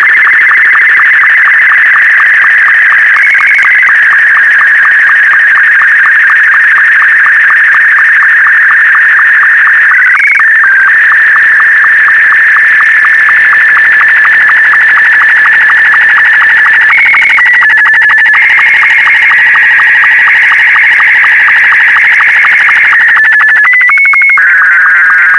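Slow-scan television (SSTV) signal in Wraase SC2-60 mode, sending a test image line by line. It is a continuous high, warbling whistle that shifts in pitch with the picture content, with a fast, regular ticking of line-sync pulses running through it. The pitch jumps noticeably a few times, near 3, 10 and 17 seconds in and again near the end.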